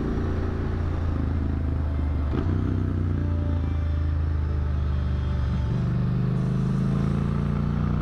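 Triumph motorcycle engine running steadily under a light, even throttle while cruising, with wind and road noise over it. There is a brief knock about two and a half seconds in, and the engine note shifts a little near six seconds.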